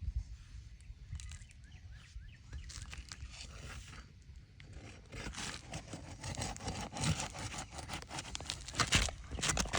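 Asphalt shingles being pried loose with a roof snake: scraping and tearing as the seal strip lets go, with scattered sharp knocks, busier in the second half.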